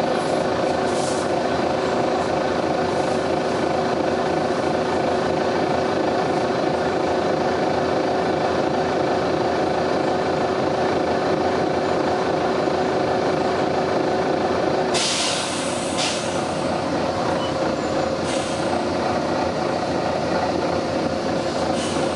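Volvo B9TL double-decker bus's engine running with a steady drone. About fifteen seconds in, a loud burst of air hiss from the air brake system comes as the engine note changes, followed by a couple of shorter hisses.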